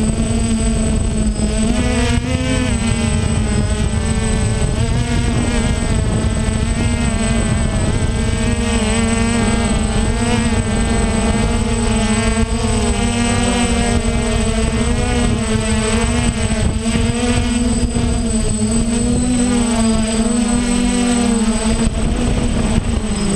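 DJI F550 hexacopter's six brushless motors and propellers buzzing in flight, heard from the GoPro mounted on the craft, the pitch wavering up and down as the motors change speed. Right at the end it sets down and the buzz starts to drop in pitch.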